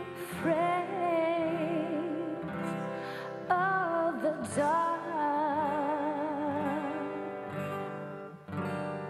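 A woman singing a slow ballad into a microphone, holding long notes with vibrato, accompanied by two acoustic guitars.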